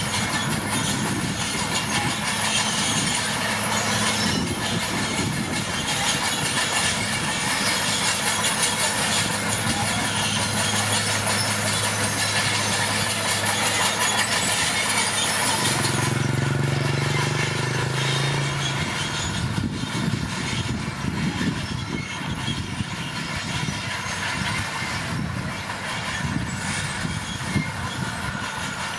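Komatsu D41P crawler bulldozer working, its diesel engine running with the clatter of its steel tracks. The engine note holds steady at first, changes about halfway through, then gives way to rougher, uneven knocking and clanking.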